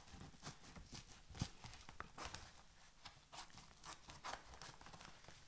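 Brown paper mailing envelope being handled: faint rustling and crinkling of the paper with scattered small clicks, and one sharper knock about a second and a half in.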